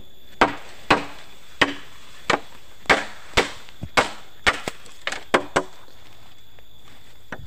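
Machete chopping a green bamboo pole, about a dozen sharp strikes at roughly two a second, each with a short ringing tail. The chopping stops about five and a half seconds in.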